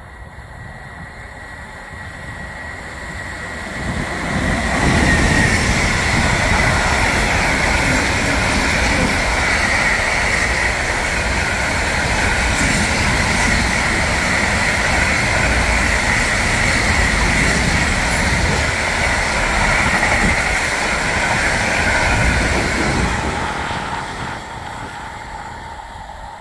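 Electric-hauled container freight train passing: its rumble and wheel-on-rail noise build over the first few seconds and stay loud for most of the pass as the wagons go by, then fade away near the end. A steady high-pitched whine runs through it.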